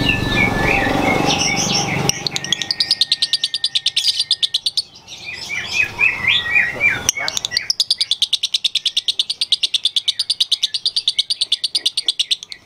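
Fischer's lovebird singing a fast, evenly paced chattering trill in two long runs, the second about five seconds long, with looser chirps between them.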